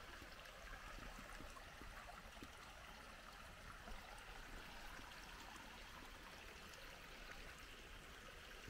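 Faint, steady rush of running water from a small stream.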